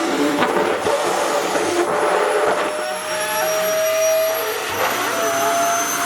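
Sharp EC-KP7F-A vacuum cleaner running steadily, its motor whine creeping slightly up in pitch, with irregular rustling of fabric being drawn against the nozzle.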